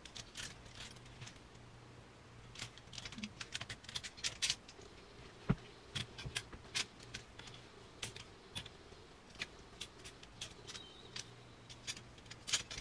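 Clothes hangers clicking and rattling on a closet rod, with the light rustle of garments being pushed along and pulled out, in irregular short clicks.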